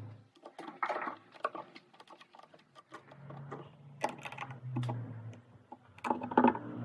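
Irregular clicks and knocks over an intermittent low hum.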